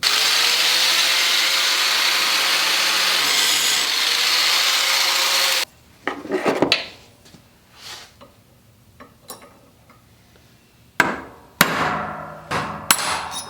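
A grinder grinding down a steel bar clamp, a steady loud run that cuts off suddenly about five and a half seconds in. Then a series of scattered sharp knocks and short scrapes as the metal piece is worked loose.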